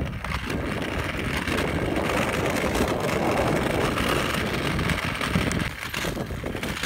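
Steady rushing and rumbling of wind and motion on a moving camera's microphone, easing a little near the end.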